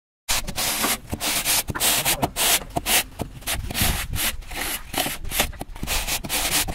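A straight edge being scraped back and forth over a wet sand-cement mortar bed in quick, gritty rubbing strokes, levelling the screed before the tiles are laid. The strokes start a moment in, after a brief silent gap.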